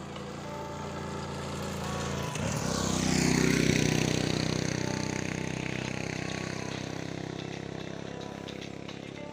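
A motor vehicle's engine approaching and passing by, loudest three to four seconds in, its pitch dropping as it goes by, then slowly fading away.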